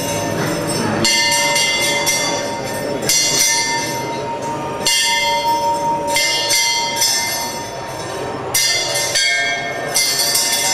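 Large hanging brass temple bell rung by hand again and again: about six strikes, spaced a second and a half to two seconds apart, each ringing on into the next.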